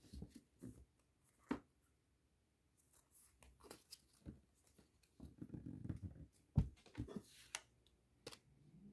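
Pokémon trading cards handled by hand: a stack flipped through and single cards laid down on a playmat, giving faint, scattered taps and card-on-card rustles.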